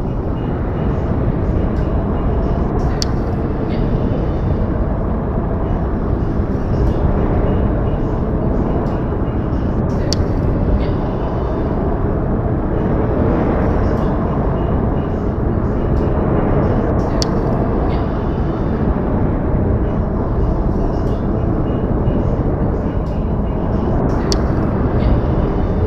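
Steady outdoor ambience: an even rushing noise, strongest low down, that starts abruptly, with a few faint clicks on top.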